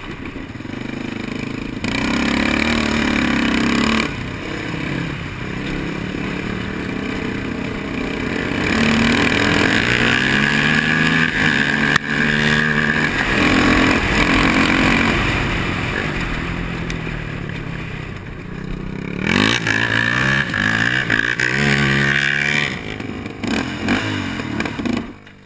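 Single-cylinder four-stroke engine of a Honda sport quad revving up and down as it accelerates and shifts through the gears, with wind rush and gravel noise. The engine sound falls away abruptly at the end.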